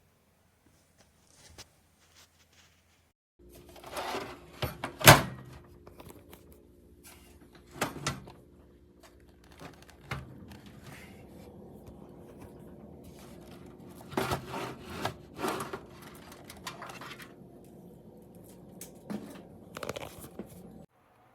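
A series of knocks and clunks from something being handled, the loudest about five seconds in, over a steady low hum that starts a few seconds in and cuts off suddenly near the end.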